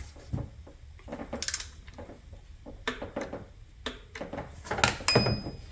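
Irregular clicks and knocks of hand tools on metal as the idler pulley bolt is torqued down, with a short metallic ring about five seconds in.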